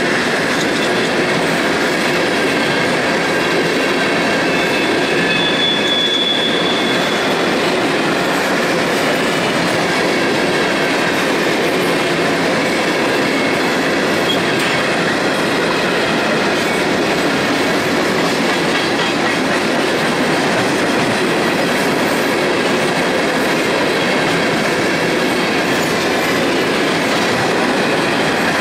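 A string of empty CSX coal cars rolling past at steady speed: a continuous loud rumble and rattle of wheels on the rails, with a brief high wheel squeal about five seconds in.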